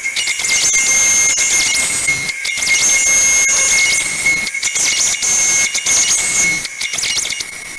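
High-speed rotary tool whining steadily as it grinds and sands the steel-sleeved two-stroke cylinder, with a few brief breaks where the tool lifts off the metal.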